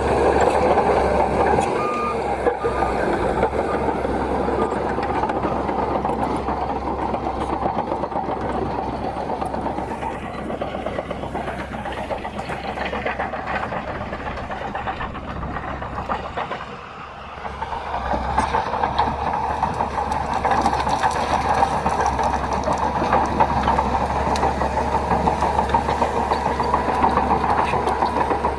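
Crawler bulldozer's diesel engine working steadily under load; it drops off briefly about two thirds of the way through, then picks back up.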